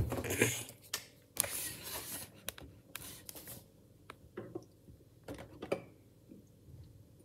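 Wet Orbeez water beads squishing and rubbing inside a latex glove and balloon as they are handled: short, irregular squelchy rustles, thinning out after the first few seconds to a few faint clicks.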